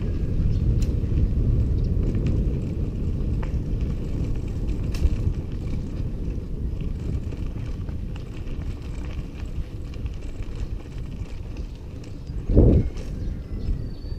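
Wind buffeting the microphone and tyres rumbling as a bicycle rides along a rough dirt road. The noise eases off in the second half, with a brief louder gust near the end.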